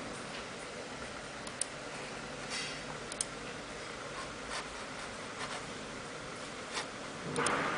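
A few short, sharp computer mouse clicks over a steady hiss as options are selected on screen, with a louder noise swelling near the end.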